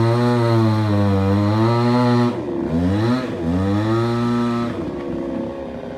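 Two-stroke chainsaw cutting through a fallen coconut tree trunk, its engine pitch wavering under load. About two seconds in the revs fall off and climb back up twice, and near the end the engine drops to a lower, quieter speed.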